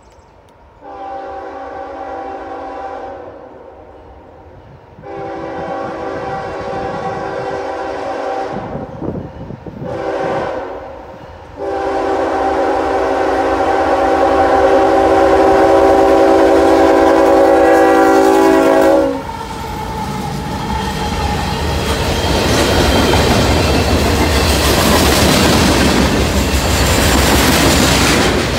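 Diesel freight locomotive's air horn sounding four blasts, long, long, short, then a long held blast: the standard grade-crossing signal. The locomotive then passes close by with a loud rumble, followed by freight cars rolling past with wheels clicking over the rail joints.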